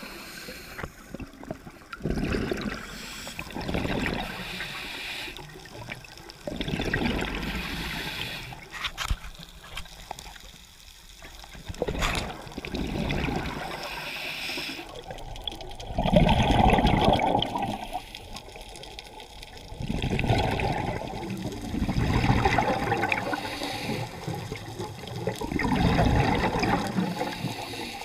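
Scuba diver's breathing through a regulator underwater: repeated gurgling rushes of exhaled bubbles every few seconds, with quieter hissing in-breaths between.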